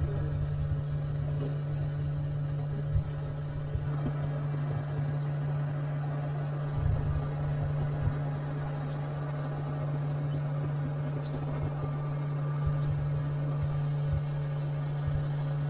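A steady low machine hum with a rumble beneath it, unchanging throughout. A few faint short high chirps come in around the middle.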